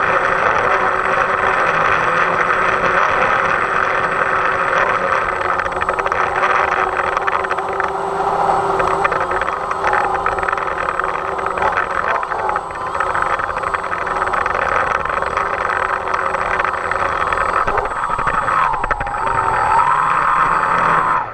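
DJI Phantom quadcopter's electric motors and propellers whining steadily at close range, with gusty wind on the microphone; the pitch wavers a second or two before the end, then the sound drops off suddenly.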